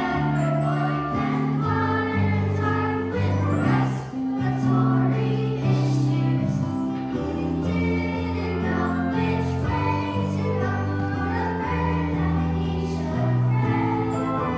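A choir singing a song with instrumental accompaniment, held notes changing every second or so.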